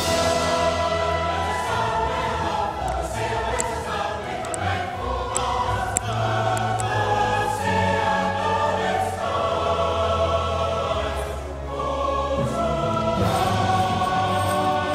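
Choral music: a choir singing long, held chords.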